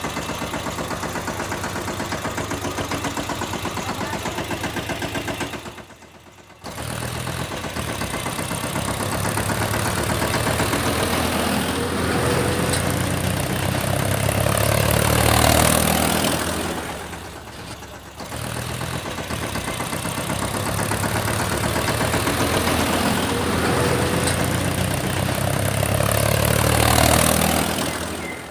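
Tractor engine running with a steady chugging beat. It drops out briefly about six seconds in, then swells louder and falls back twice.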